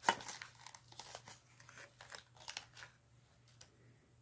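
Tightly packed pipe tobacco being pulled apart and loosened by hand in its opened tin: a dry crinkling and crackling, loudest right at the start and busy for about three seconds, then thinning to a few soft rustles.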